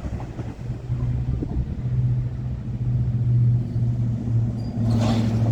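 A vehicle engine running with a steady low hum, joined by a brief rush of noise near the end.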